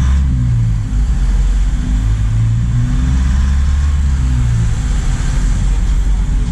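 Cargo truck's engine running while under way, a steady low drone over road noise.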